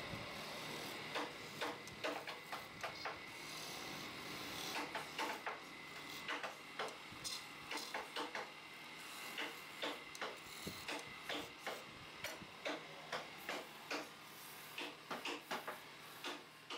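Wood lathe running with a steady motor hum while a hand turning chisel scrapes the spinning wooden chair leg in many short, irregular strokes, a few each second.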